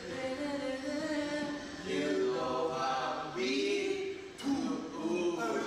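Young men's voices singing a melody together, with some held notes.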